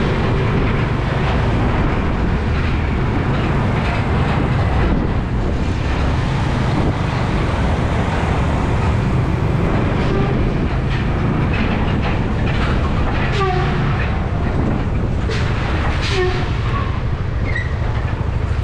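Motorcycle riding along a road: steady engine and wind rumble on the camera microphone.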